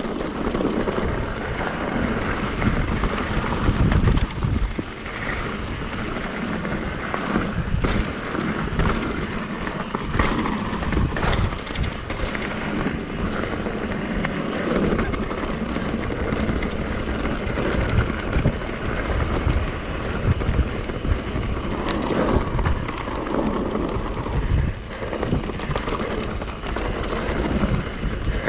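Mountain bike riding fast down a dirt singletrack: wind rushing over the camera microphone and tyre noise on the dirt, with frequent knocks and rattles as the bike goes over bumps.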